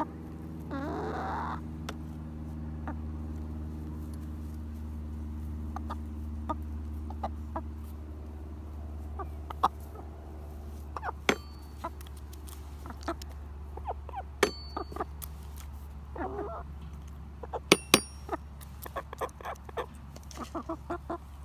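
Hens pecking at a toy xylophone's metal bars: scattered sharp taps, a few of which ring out as clear bell-like notes in the second half. A hen's call sounds about a second in and a shorter one later, over a steady low hum.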